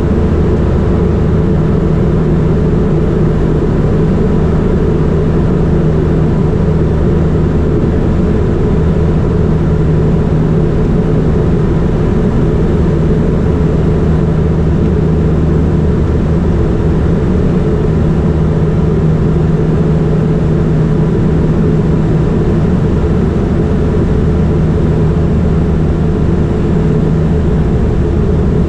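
Rockwell Turbo Commander 690B twin turboprop in flight: its Garrett TPE331-10 engines and propellers make a loud, steady drone with a constant low hum that does not change.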